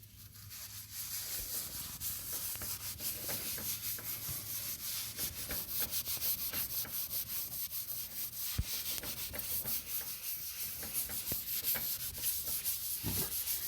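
A wet paper wipe dipped in wood ash scrubbed quickly back and forth over soot-covered fireplace door glass, using the ash as an abrasive to clean off the soot. One light knock sounds about two-thirds of the way through.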